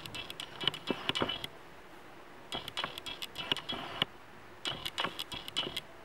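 Hands scrunching damp hair close to the microphone: three spells of quick crackling rustles with light clinking, with short pauses between.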